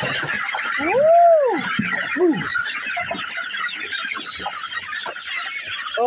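A crowded flock of young chickens peeping and clucking without a break, with one loud rising-then-falling squawk about a second in and a shorter one just after.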